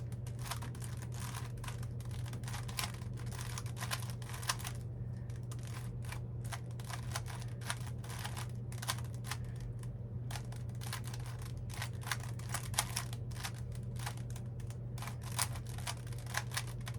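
Plastic twisty puzzle cube being turned by hand during a solve: an irregular run of clicks and clacks as its layers snap round, over a steady low hum.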